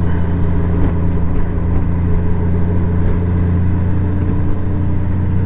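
Honda Gold Wing motorcycle cruising at a steady speed: a continuous, even engine drone.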